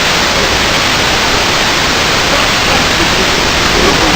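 Loud, steady hiss of noise with no clear pattern or rhythm.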